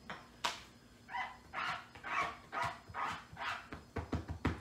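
A clear acrylic stamp block being rubbed back and forth on a damp chamois stamp cleaner, screeching in a run of about six short squeaks, roughly two a second, as ink is wiped off the stamp. Two light clicks come just before the squeaks.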